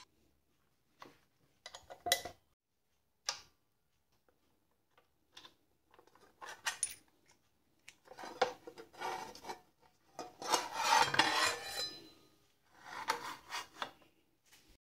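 Metal blade, guard and arbor parts of an Evolution miter saw being handled during a blade change: a few faint clicks, then several bouts of metal scraping and rubbing as the blade is worked off the arbor, the longest about ten seconds in.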